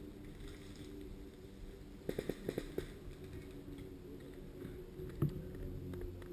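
A quick run of about six sharp clicks about two seconds in and a single knock later, over a steady low rustle.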